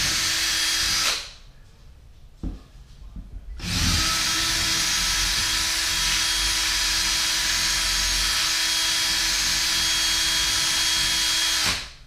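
Cordless drill running against the wall, drilling in: a short run of about a second, then after a pause a steady run of about eight seconds with an even motor whine, stopping just before the end.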